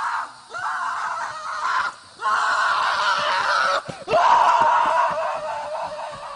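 A series of loud scream-like cries, each lasting about one to two seconds, with short breaks between them.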